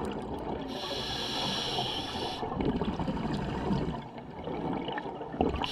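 Scuba diver breathing through a regulator underwater. A hiss as a breath is drawn, from about one to two and a half seconds in, then a low bubbling and gurgling as the exhaled air escapes.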